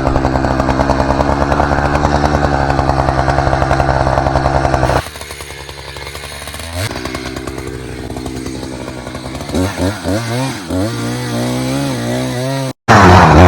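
Chainsaw running steadily at full throttle, then dropping to a much quieter idle about five seconds in. From about ten seconds it is revved in short blips, with a sudden brief break just before the end.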